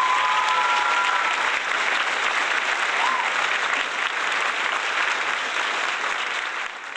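A crowd applauding and cheering, with a few whistles, dying away near the end.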